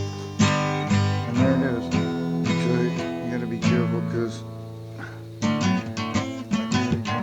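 Background music: strummed and picked acoustic guitar.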